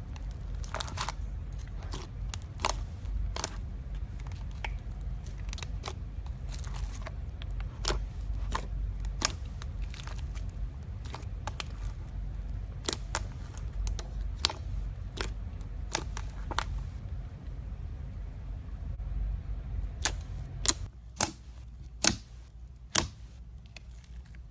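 Slime being squeezed and poked, making irregular sharp clicks and pops over a low steady rumble. The rumble drops away near the end, leaving a few louder pops.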